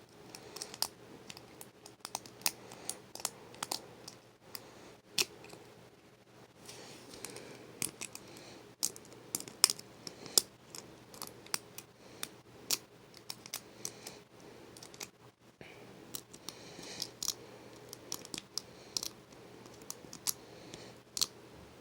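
Lock pick and tension wrench clicking inside a laminated steel padlock's keyway as the pins are worked, in many small, irregular clicks.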